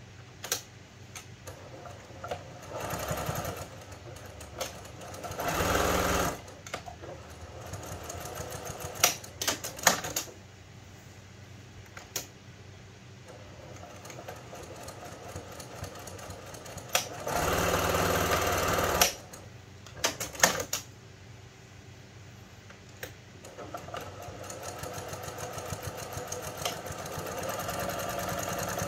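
Brother PQ1500S straight-stitch sewing machine sewing quilting lines through a thick layered cloth pad, in short runs that start and stop. The longest run, about two seconds, is near the middle, and a longer, steadier run starts in the last few seconds. Sharp clicks come between runs.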